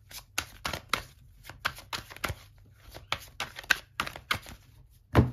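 A deck of tarot cards being shuffled by hand, a quick irregular run of sharp card clicks and slaps, with one louder thump near the end.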